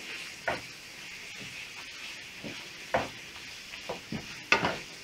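Mushrooms, broccoli and shell pasta sizzling in bacon fat in a frying pan while a wooden spatula stirs them, with a few short scrapes of the spatula, the loudest about three and four and a half seconds in.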